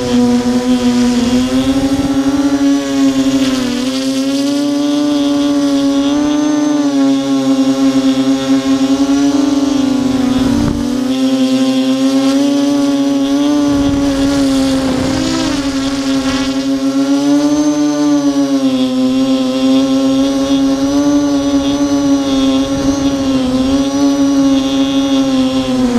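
Brushless motors and propellers of an Armattan Tilt FPV quadcopter whining steadily in flight, heard close up from the craft itself. The pitch wavers up and down with throttle changes and dips briefly about ten and fifteen seconds in.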